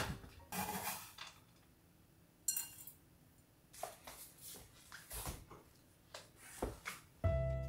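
Quiet kitchen handling sounds: a sharp knife chop through chocolate chips on a wooden board at the start, a single ringing clink about two and a half seconds in, then a few light knocks as cardboard cream cheese boxes are set down on the counter. Soft background music comes back near the end.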